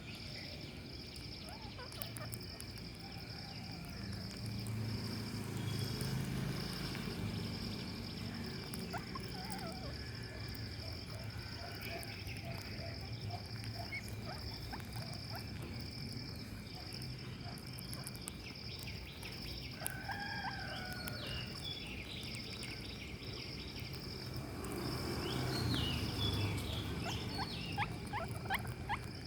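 Outdoor ambience: a steady, evenly repeating high insect chirp with scattered short bird chirps and calls, busiest near the end, over a low rumble that swells twice.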